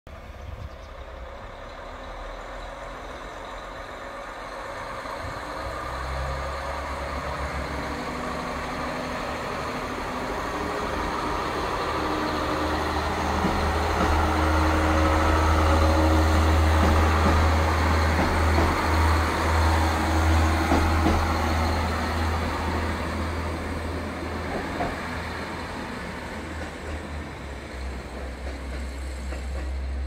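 JR Hokkaido KiHa 40 diesel railcars pulling out of the station. The diesel engines drone low and build up as the train gets under way, loudest about halfway through, then fade as it pulls away.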